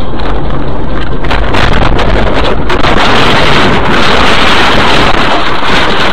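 Loud, distorted rushing of road and wind noise on a car's dashcam microphone as the car crashes. Scattered knocks come in the first half, and the noise turns harsher and louder in the middle as the car tumbles and the windshield shatters.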